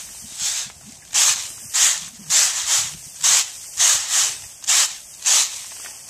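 Threshed rice grain swishing across a round, flat bamboo winnowing tray as it is shaken and tossed, about ten rhythmic swishes at roughly two a second.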